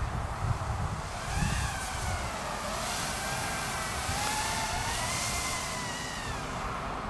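EMAX Babyhawk micro quadcopter's 2S brushless motors and propellers whining in flight, the pitch gliding up and down as the throttle changes, with a high hiss from the props. The whine comes in strongly about a second in.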